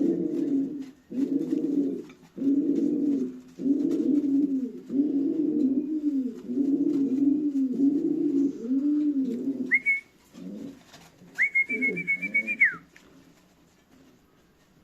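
Gaditano pouter pigeon cooing: a run of about nine low, rolling coos, roughly one a second. Near the middle a high whistle sounds twice, the second a short warbling trill, before the cooing stops.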